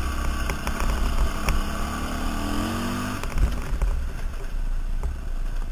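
KTM 530 dirt bike's single-cylinder four-stroke engine running on a gravel road, under heavy wind rumble on the helmet-mounted microphone. The engine note rises for about a second around the middle, and scattered sharp clicks and rattles run through it.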